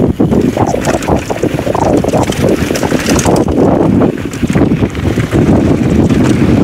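Heavy wind buffeting on a GoPro Hero 11's microphone as a downhill mountain bike rides fast over gravel, with tyres crunching and scattered clicks and rattles from the bike.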